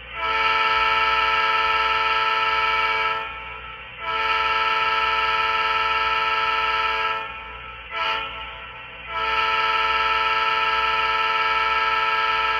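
HO-scale EMD SDP35 model's sound decoder blowing a multi-chime diesel air horn through the model's small speaker, in the grade-crossing pattern: two long blasts, a short toot, then a final long blast. A low steady hum runs underneath.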